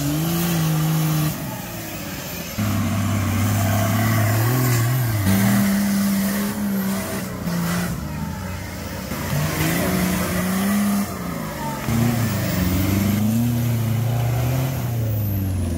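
Off-road 4x4 buggy engines revving hard as the vehicles claw up a steep muddy slope, the engine note rising and falling with the throttle. The sound changes abruptly a few times.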